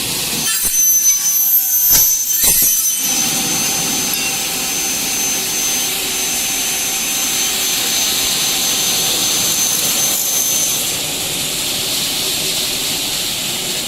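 Double-head aluminium cutting saw running, its motor and blade giving a steady high whine over a loud hiss. Between about half a second and three seconds in there is a stretch of rougher, uneven noise. The whine drops away about eleven seconds in while the hiss goes on.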